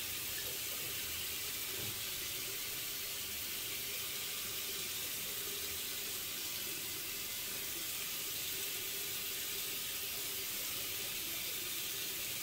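Bathroom tap running steadily into a sink while the face is rinsed after shaving.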